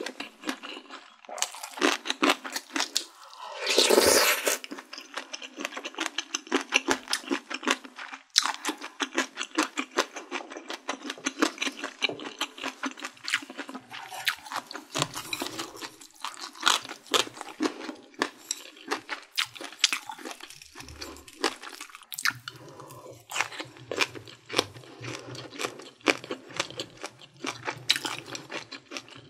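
Close-miked eating sounds: a person chewing Korean sundae and soup with a dense run of quick mouth clicks, and one loud slurp of soup from a spoon about four seconds in.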